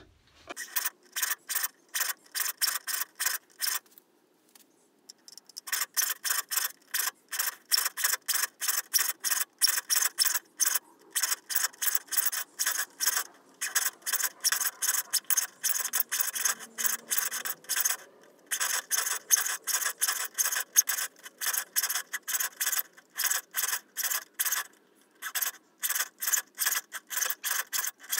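A saw file rasping across the steel teeth of a rip saw held in a wooden saw vice, sharpening them in quick, even strokes, about four a second, with short breaks about four seconds in and again about eighteen seconds in.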